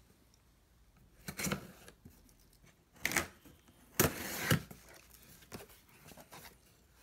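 Packing tape on a cardboard box being slit with a pocket knife and torn, in several short rasping strokes, the loudest about four seconds in, followed by lighter rustles of the cardboard flaps being opened.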